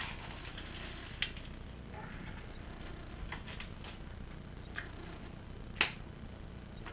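A few small clicks while a man eats a sandwich, then one loud, sharp finger snap near the end.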